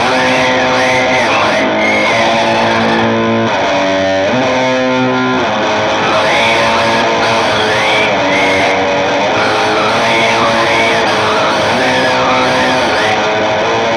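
Guitar music: held chords under a high melodic line that bends up and down.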